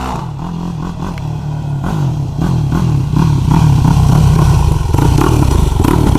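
Yamaha YFZ450 quad's single-cylinder four-stroke engine running, getting louder about two to three seconds in and then holding steady.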